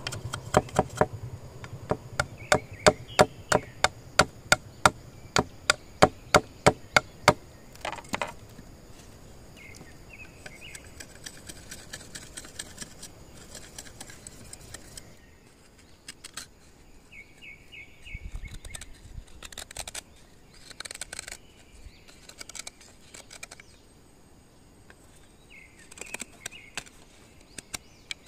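Bamboo being chopped, with a quick, even run of sharp strikes, about two or three a second for the first seven seconds, then a few scattered knocks.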